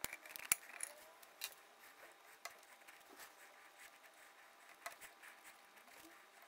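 Faint scattered clicks and light scrapes of small plastic parts being handled: black plastic header pin strips pressed into slots in a 3D-printed plastic frame.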